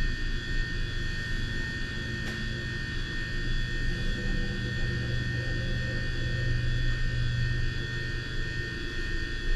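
Steady low hum with constant hiss and a few fixed faint tones, unchanging throughout: background room or electrical noise.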